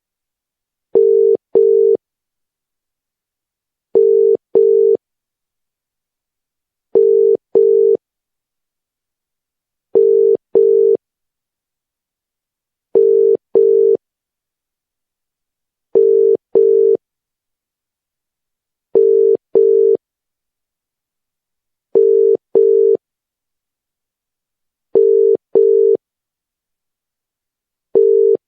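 Telephone ringback tone, the sound a caller hears while the called phone rings: a low steady tone in a British-style double ring, two short beeps repeating about every three seconds with silence between.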